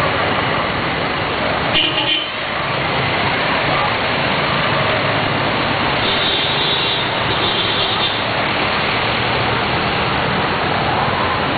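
Traffic through a flooded street: jeepneys and vans run through floodwater over a steady rushing noise, with indistinct voices. Brief high tones stand out about two seconds in and twice between six and eight seconds in.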